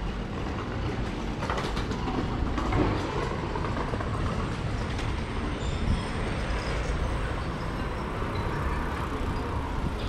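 City street sound dominated by a steady vehicle rumble, with a few short clicks about a second and a half in.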